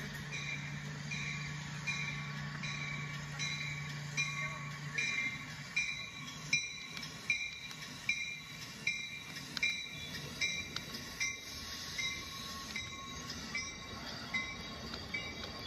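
Toy LEGO trains running on plastic track: a high motor whine that pulses on and off about once a second, with a steady low hum that fades about five seconds in. A run of sharp clicks follows, about one a second, as wheels cross the track joints.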